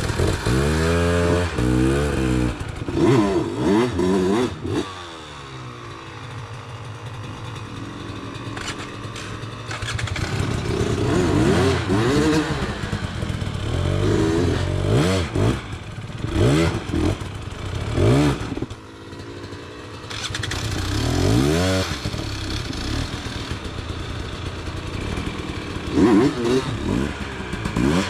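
Enduro dirt bike engines revving hard in repeated bursts, the pitch sweeping up and down as the throttle is blipped and released on a rocky climb.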